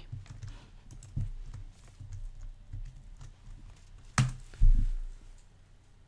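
Typing on a computer keyboard: a run of irregular key clicks, with a harder key strike and a dull thump a little after four seconds in.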